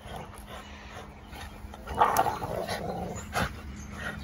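Two dogs growling as they tug-of-war over a pine branch, with the needles and twigs rustling and crackling. The growling gets louder about halfway through, and a sharp crack follows a little later.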